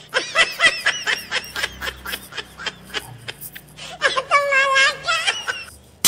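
People laughing in quick repeated bursts, with a higher-pitched, longer laugh about four seconds in.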